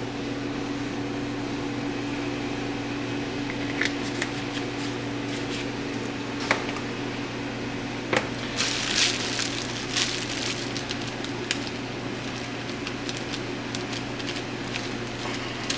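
Steady low hum of a kitchen appliance or fan, with scattered clinks and taps of utensils and dishes that cluster a little past halfway.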